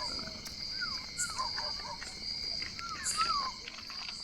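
Crickets trilling steadily in a high, pulsing chorus. Over them come several short squeaky calls that rise and fall in pitch, from an animal, in pairs about a second in and about three seconds in.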